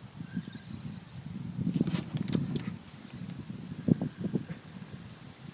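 Spinning reel being cranked against a hooked chain pickerel, a rapid whirring, ticking rattle of the reel's gears, louder about two seconds in.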